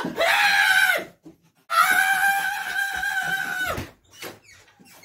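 A person letting out two long, high-pitched held cries, the first about a second long and the second about two seconds, each dropping in pitch as it ends.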